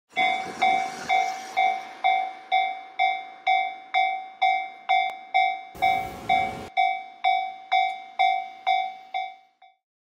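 Japanese railway level-crossing warning bell ringing its 'kan-kan' at about two strikes a second, each strike fading away, stopping shortly before the end. A brief rush of noise cuts in for about a second, about six seconds in.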